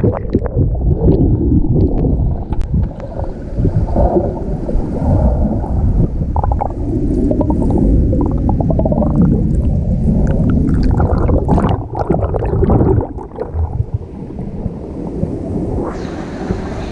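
Muffled underwater sound from a submerged camera: water churning and bubbles gurgling, with scattered knocks against the microphone. About sixteen seconds in, the sound suddenly brightens as the camera comes out of the water.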